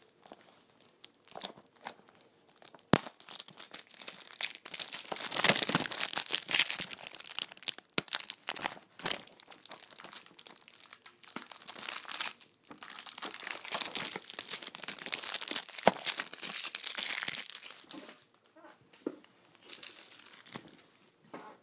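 Plastic shrink-wrap being peeled and crumpled off a Blu-ray case, crinkling in irregular bursts with a few sharp clicks, dying down near the end.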